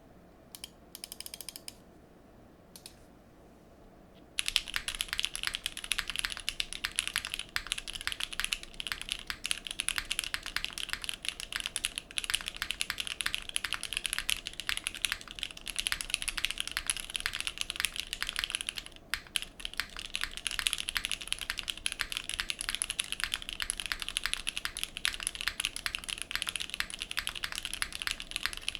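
Mechanical keyboard typing: a Geonworks Frog Mini with SP-Star Meteor White V2 linear switches, a polycarbonate plate and GMK keycaps. After a few faint clicks, fast continuous typing starts about four seconds in, with a brief lull past the middle.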